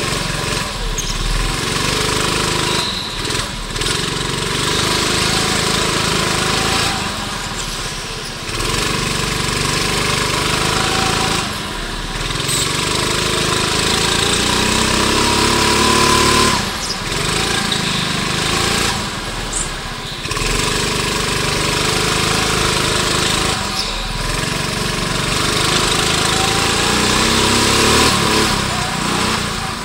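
Go-kart engine heard from on board at racing speed. Its note rises as the kart accelerates down each straight and drops briefly when the driver lifts off for a corner, several times over.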